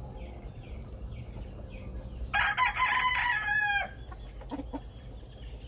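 Gamefowl rooster crowing once, about a second and a half long and ending on a falling note, a couple of seconds in. A few soft clucks follow near the end.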